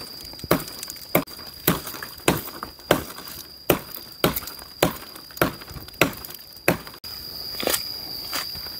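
Footsteps of a person walking through dry forest undergrowth, a little under two steps a second, over a steady high-pitched tone.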